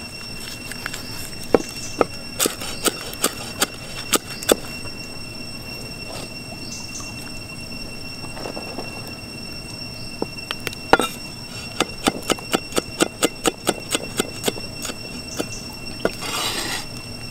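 Cleaver chopping lemongrass, kaffir lime leaves and chillies on a wooden chopping block. There are a few scattered chops in the first few seconds, then a quick even run of about three chops a second.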